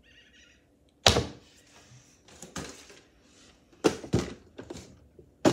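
About five hard knocks and thumps as a cardboard figure box and a Godzilla action figure are set down and moved on a wooden tabletop. The loudest comes about a second in.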